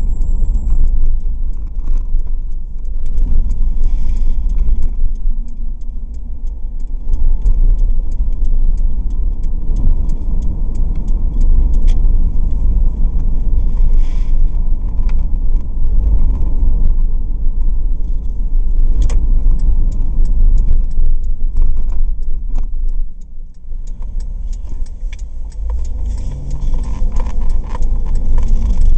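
Cabin noise of a Ford Escape V6 being driven: steady low road and engine rumble with frequent small rattles and clicks. It drops briefly about 23 seconds in, then the engine note rises as the revs climb near the end.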